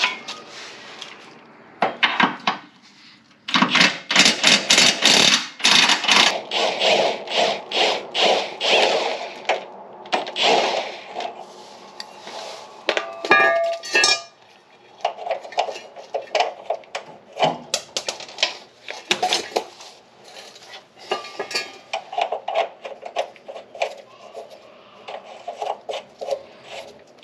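Cordless 24-volt impact wrench hammering in repeated bursts, with a pause about halfway, as it works bolts out of a car's rear subframe bracket.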